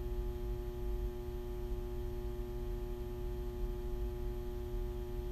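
Snack vending machine's steady electrical hum: one low tone with several fainter higher tones stacked above it, unchanging.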